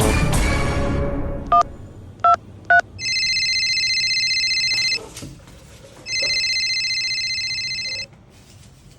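A music sting fades out, then three telephone keypad beeps, followed by a phone ringing twice, each ring a fluttering trill of about two seconds.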